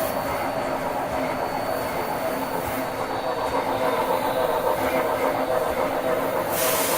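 A train running on rails, with a steady rolling rumble and a hiss that comes in near the end.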